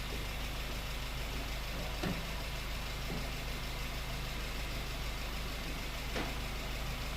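Honda Fit four-cylinder petrol engine idling steadily, with a couple of faint clicks. The engine has been diagnosed with two fuel injectors delivering too little fuel and a failed catalytic converter, the cause of its rough, wandering idle.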